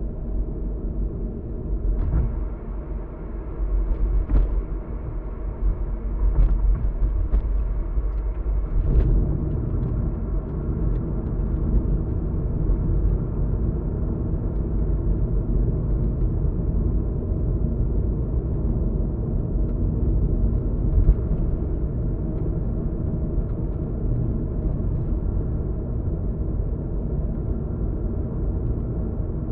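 Car driving at road speed, heard from inside the cabin: steady tyre and engine rumble with a few faint clicks early, the rumble growing fuller about nine seconds in.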